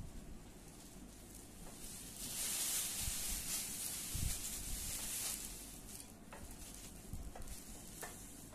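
Large clear plastic bag rustling and crinkling as a bicycle frame is pulled out of it, loudest for a few seconds in the middle, with a couple of dull knocks from handling.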